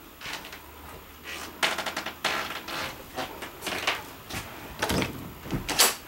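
Irregular knocks, clicks and rattles as someone walks through a travel trailer's interior, with footsteps on its floor and handling of its fittings. The sharpest knock comes just before the end.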